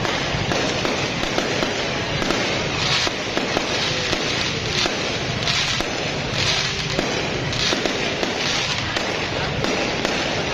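Fireworks going off in a continuous barrage of rapid, overlapping bangs and crackles.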